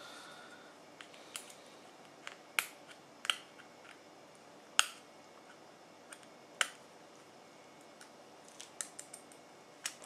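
Irregular sharp metal clicks and snaps, about a dozen, the loudest about five seconds in: a circlip being worked onto the shaft of the bearing roller on a Toyota Tarago (TCR10) sliding-door hinge.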